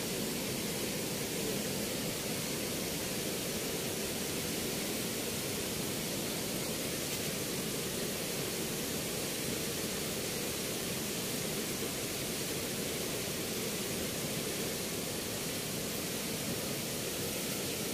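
Steady rush of water pouring through the open sluice gates of a movable weir, an even, unbroken noise.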